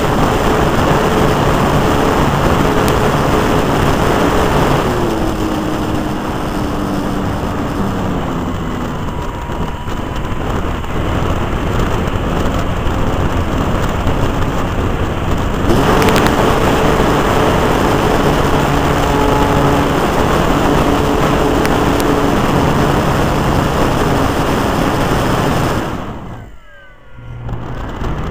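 Radio-controlled model Zlin plane in flight, heard from its onboard camera: its engine running under heavy rushing airflow. The engine throttles back about five seconds in and opens up again about sixteen seconds in. Near the end the engine sound briefly drops away, then revs back up.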